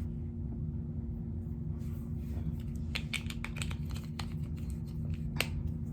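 Small clicks and taps of makeup tools and containers being handled, clustered in the second half with one sharper click near the end, over a steady low electrical hum.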